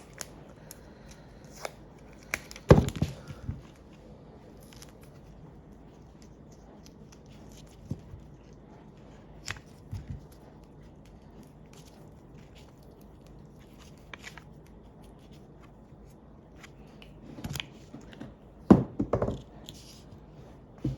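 Scattered small clicks and taps of hands working wires and components on a breadboard, with two louder bursts of clatter about three seconds in and again near the end.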